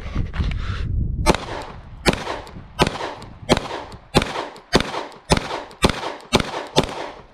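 Glock 48 9mm pistol firing a timed string of ten shots drawn from concealment. The first shot comes a little over a second in, then the rest follow about every two-thirds of a second, a little faster toward the end.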